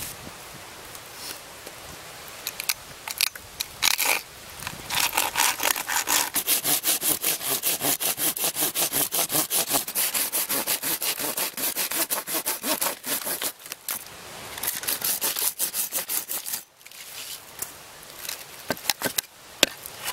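Hand saw cutting through a plank of dry, weathered log wood in rapid, even back-and-forth strokes. The strokes stop about three-quarters of the way in, leaving a few scattered scrapes.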